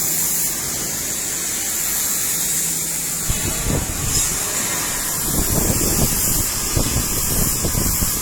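Butt welding machine joining steel rod: a steady hum with hiss, then from about three seconds in an irregular crackling that grows dense after about five seconds as the rod ends arc and fuse.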